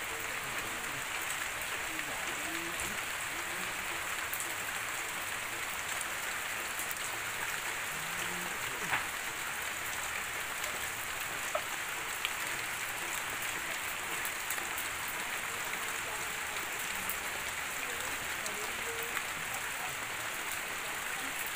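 Steady rain falling on a corrugated roof and leafy plants, with scattered sharper drop hits and drips from the roof edge.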